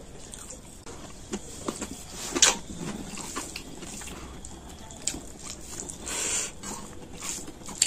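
Fingers mixing rice and chicken curry on a steel plate: soft wet squelches and scattered small clicks, with one sharp click about two and a half seconds in and a brief rustle a little after six seconds.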